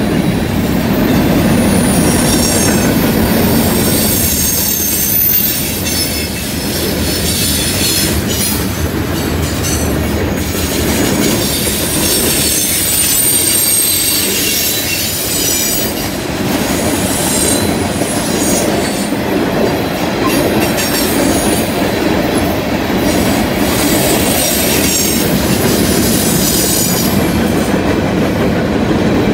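Freight cars, covered hoppers and tank cars, rolling past close by on a curve: a steady rumble of steel wheels on the rail, with high-pitched wheel flange squeal coming and going as the wheels grind through the curve.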